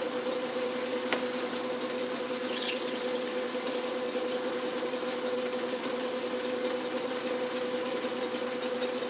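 Wards Logan metal lathe running steadily with a constant hum while its tool turns down a brass blank held in the chuck. There is a single sharp tick about a second in.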